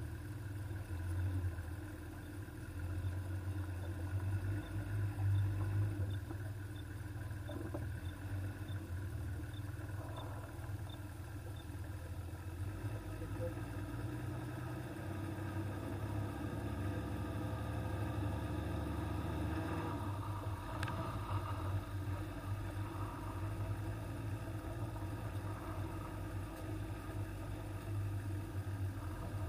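Toyota Land Cruiser on the move: a steady low rumble of engine and road noise.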